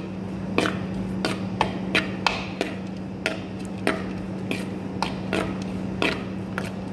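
Metal spoon knocking and scraping against a bamboo bowl while tossing sliced mushrooms with pepper and salt, short sharp clicks about two a second, over a steady low hum.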